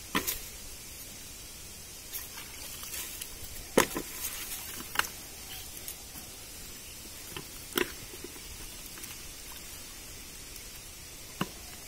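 Fish and water being handled in a wet fishing net at a pond's edge: a few short wet splashes and slaps, several seconds apart, over a steady background hiss.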